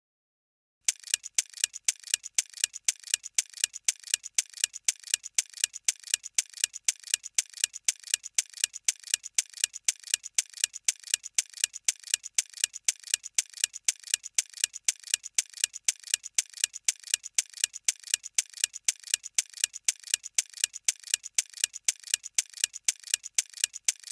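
Ticking clock sound effect used as a countdown timer while the quiz question is on screen, with sharp, evenly spaced ticks about three a second, starting about a second in.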